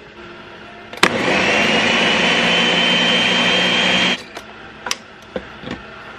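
A countertop blender switches on with a click about a second in. It runs for about three seconds, puréeing roasted peppers, tomatoes, onions and garlic, with a whine that rises and then holds steady, and then cuts off abruptly. A few clicks and knocks follow as the jar is lifted off the base.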